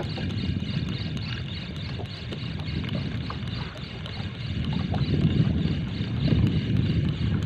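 Low rumble of wind and choppy water around a small boat, swelling and easing, with faint ticks on top.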